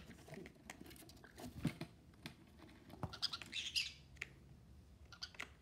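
Baby conure moving about on a foam mat, with many small irregular clicks, taps and scratches from its feet and beak, and a short, denser, higher-pitched scratchy burst about three and a half seconds in.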